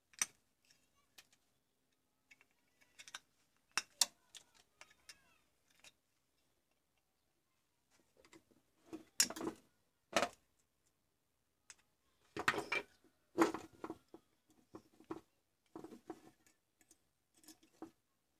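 Irregular clicks, taps and knocks of a hard plastic charger case and metal hand tools being handled and set down on a workbench, some with a duller thud.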